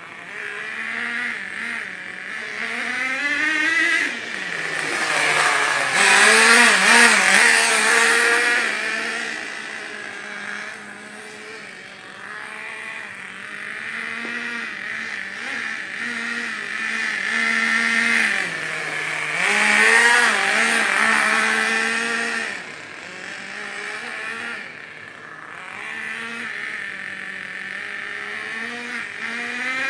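Nitro RC car's small two-stroke glow engine running and revving, its pitch rising and falling as it speeds up and slows. It is loudest in two stretches, about five to eight seconds in and again around twenty seconds in.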